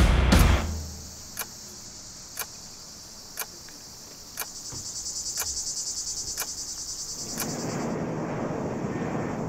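Crickets trilling steadily, with a faint tick about once a second. The trill stops near the end and a broad, steady rush of noise takes over.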